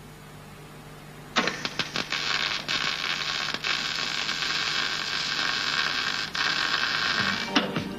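Small MIG/MAG welder's arc crackling and sizzling on thin car-body sheet steel as replacement panels are plug-welded on. It starts abruptly about a second and a half in, runs steadily with a few brief breaks, and stops near the end.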